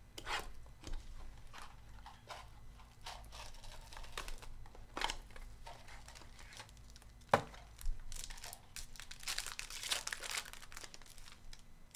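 A cardboard trading-card box being handled and opened, with scattered crackles and clicks and one sharp knock about seven seconds in, then a foil card pack crinkling and tearing open for a few seconds near the end.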